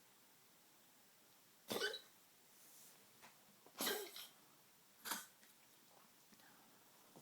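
Elderly Maltese dog coughing in three short fits, the middle one a double cough. It is a tracheal cough, which his cardiologist says is not related to his degenerative valve disease and is unlike congestive heart failure coughing.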